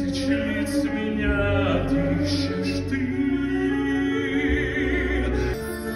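A man singing a melodic musical-theatre number over sustained orchestral backing, with vibrato on a long held note about four seconds in.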